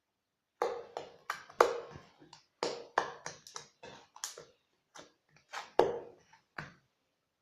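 Slime being squeezed and poked by hand, giving a quick irregular series of sharp clicking pops, about fifteen in all, with silence between them.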